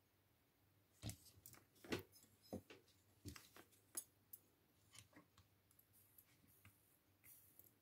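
Faint, scattered clicks and light taps of small tools and parts being handled during soldering work on a key fob circuit board. They come thickest between about one and four seconds in, then thin out to a few fainter ticks.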